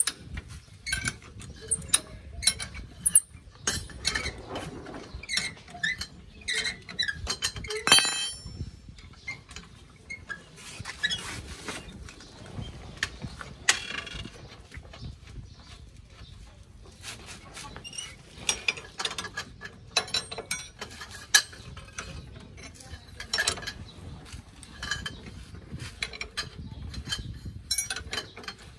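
Steel combination spanner turning a bolt: irregular metallic clicks and clinks, with one sharper ringing clink about eight seconds in.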